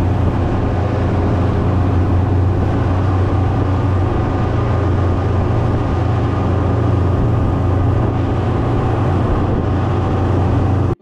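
Motorboat engine running steadily under way, a deep even drone, mixed with the rush of wind and water as the boat cruises across open sea.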